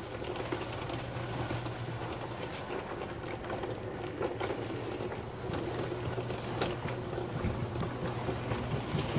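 A steady low mechanical hum, with scattered light knocks and rustles over it.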